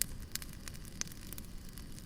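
Wood fire crackling: irregular sharp pops and snaps over a low steady rumble from the burning logs, with one louder snap about halfway through.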